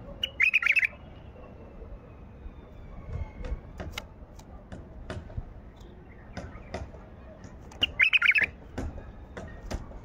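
White-eared bulbul (Baghdadi bulbul) singing two short, bubbly warbled phrases of about half a second each, one right at the start and one about eight seconds in, with faint scattered clicks and taps in between.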